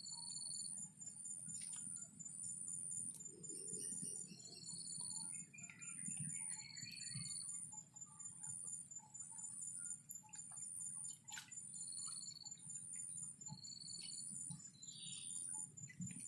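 Faint ambience of insects chirping in short, high-pitched pulses repeating about once a second over a steady high buzz. A brief twittering, likely a bird, comes about six seconds in.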